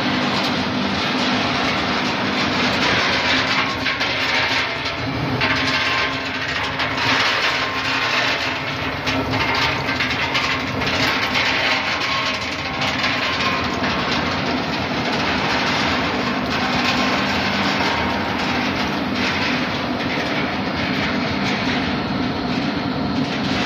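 EKO 198 almond roasting machine running: a continuous dense rattle of almonds moving over the wire-mesh conveyor belt, over a steady machine hum.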